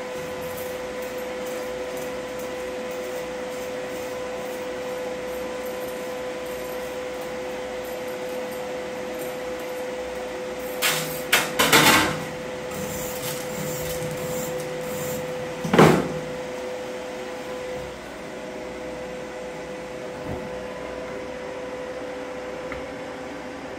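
Sharp metal knocks of a hammer being handled on a welded steel plate: a quick cluster about eleven to twelve seconds in and one louder knock about sixteen seconds in. A steady electrical hum runs underneath and stops about eighteen seconds in.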